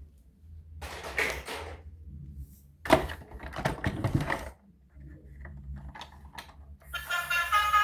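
Clicking and rattling of plastic toy vehicles being handled: a short rattle about a second in, a longer and louder one about three seconds in, then a few scattered clicks. Music comes back in near the end.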